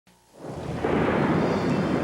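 A thunder-like rumbling noise that fades in quickly from silence in the first second, then holds steady and loud.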